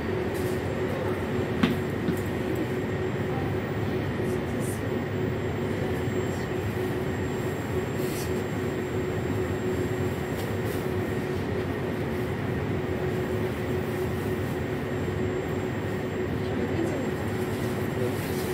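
Steady hum of a Moskva-2020 metro train standing at a station with its doors open, its onboard equipment running with a constant tone, and a single sharp click about a second and a half in.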